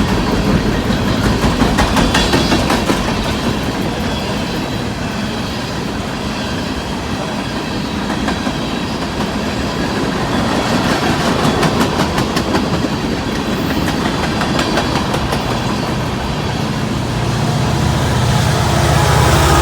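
A long train of empty coal cars rolling past at speed, steel wheels clicking over the rail joints. A steady low engine hum comes in near the end.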